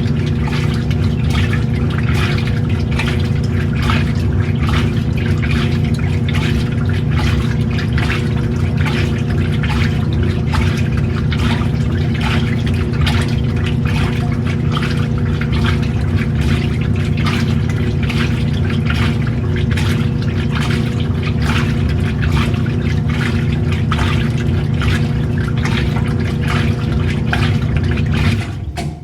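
Old-style washing machine running: a steady motor hum under sloshing, splashing water. It cuts off abruptly near the end.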